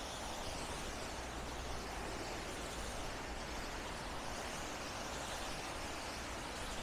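Steady hiss of rain and wet-street city ambience, with no single sound standing out.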